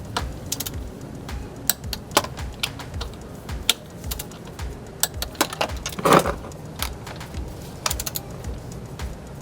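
Irregular sharp clicks of a ratchet wrench tightening the power steering pump's mounting bolts, which are being torqued to 15 foot-pounds, with a brief louder clatter about six seconds in.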